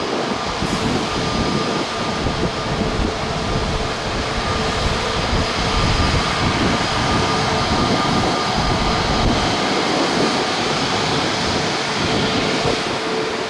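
Airbus A320neo jet airliner's engines running steadily: a continuous rushing noise with two steady whine tones, one higher and one lower.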